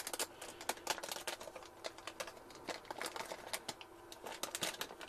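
Crinkling and crackling of a metallized anti-static bag as a circuit board is worked back into it: a quick, irregular run of sharp crackles.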